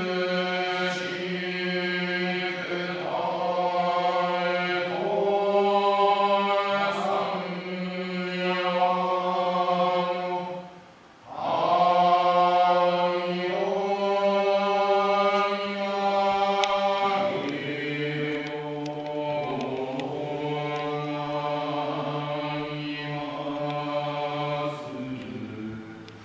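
A Shinto priest chanting a prayer: a single male voice in a drawn-out monotone. There is a breath pause about eleven seconds in, and the pitch steps down lower about seventeen seconds in.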